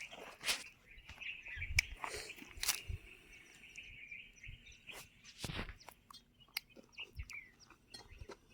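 Birds chirping, with scattered sharp clicks and knocks of handling.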